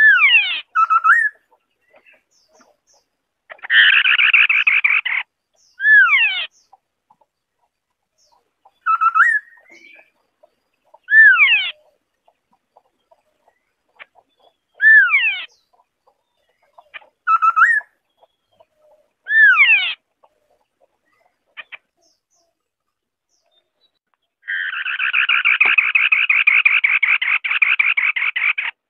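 White-browed scimitar-babbler singing: short clear whistled phrases that slur steeply downward, repeated every two to four seconds. A brief harsh burst comes about four seconds in, and a long rapid rasping chatter starts near the end.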